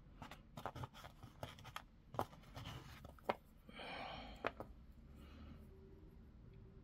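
Faint small clicks of tiny metal jewellery findings and beads being fiddled with between the fingers, as a stubborn clip is worked onto a beaded link. A soft breath-like rush comes about four seconds in.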